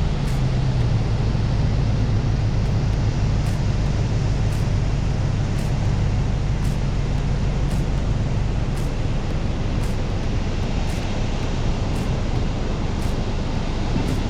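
Four-wheel-drive vehicle driving: a steady low engine drone under an even rush of road noise.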